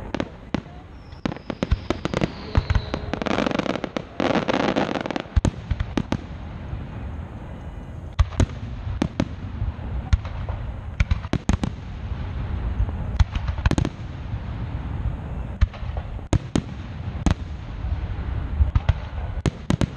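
Aerial fireworks shells bursting in irregular booms and bangs, sometimes several a second, over a steady low rumble. A thin whistle falls slowly in pitch about a second in.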